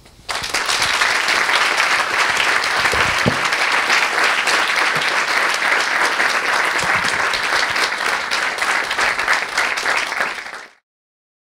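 Audience applauding, dense and steady, at the close of a talk; the applause fades out quickly near the end.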